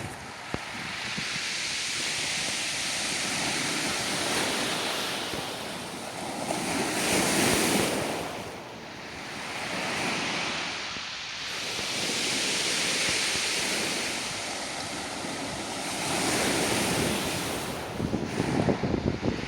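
Sea waves breaking on a beach of round, smooth pebbles, surging in and drawing back in slow swells about every five seconds. Wind buffets the microphone, choppier near the end.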